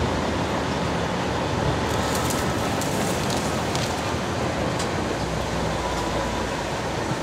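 Container truck's diesel engine running as the truck creeps along, a steady rumble with cab noise. From about two seconds in, a few light scratchy ticks as leaves brush against the cab.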